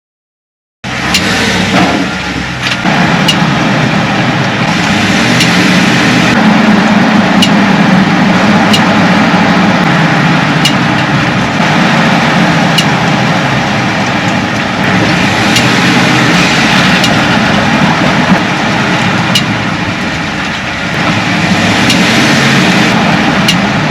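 A 2021 Chevy Silverado 4x4 driving, with steady loud road and running noise and a dozen or so sharp clicks at irregular intervals of one to a few seconds. The click comes when accelerating or decelerating and the owner suspects the driveshaft or rear axle.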